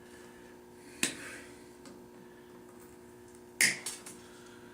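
Two sharp clicks of hand tools and valve parts being handled during the teardown of a Fuller & Johnson hit-and-miss engine's valve gear. The first click comes about a second in, and a louder one follows about two and a half seconds later, over a faint steady hum.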